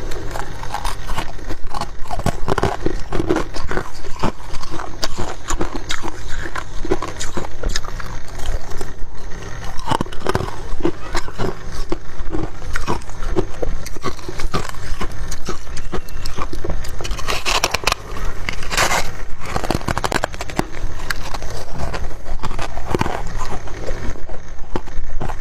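Someone chewing and biting into refrozen freezer frost: a dense, steady run of crisp, crackling crunches.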